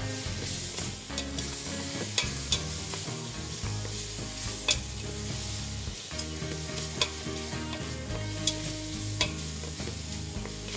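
Apples and dates sizzling as they caramelize in sugar in a stainless steel pot, stirred with a wooden spoon. A steady sizzle runs through, with a handful of sharp knocks as the spoon hits the pot.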